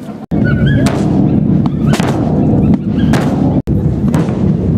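Many large rope-tensioned procession bass drums beaten together with wooden sticks, making a loud, continuous rumbling roll. It cuts out abruptly twice for an instant.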